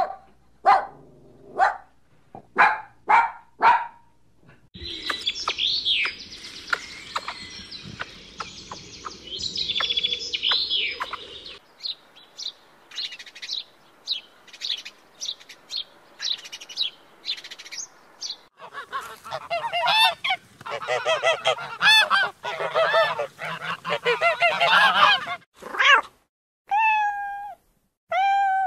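A run of animal calls. It opens with Pomeranian puppies yapping in short, sharp calls. Bird chirping, house sparrow among it, runs through the middle, then comes a stretch of dense, rapid calls, and near the end a cat meows a few times with falling pitch.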